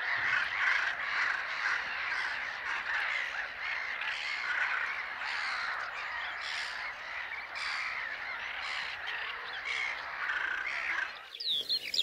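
A large flock of greylag geese calling together, a dense continuous mass of harsh, squawking calls. Near the end it cuts off abruptly and a small bird's fast, high chirping song begins.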